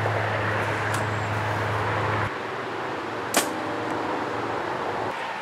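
An arrow shot from a bow: one sharp snap about three and a half seconds in, with a fainter click about a second in, over outdoor background noise.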